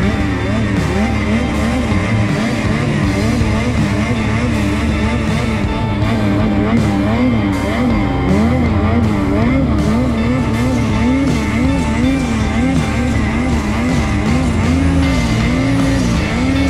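Snowmobile engine running and revving up and down as the sled rides along a trail, under rock music.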